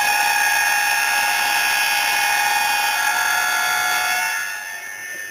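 Basketball arena buzzer sounding one long, steady horn note that starts abruptly and fades out after about four and a half seconds.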